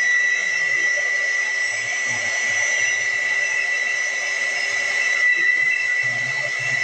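Handheld hot-air blower running steadily: rushing air with a constant high whine, used to heat thin plastic so it can be bent.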